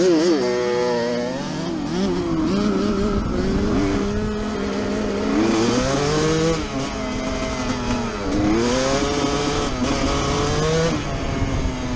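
Two-stroke dirt bike engine heard from the rider's helmet as he pulls away, revs climbing and dropping back several times as it shifts up through the gears.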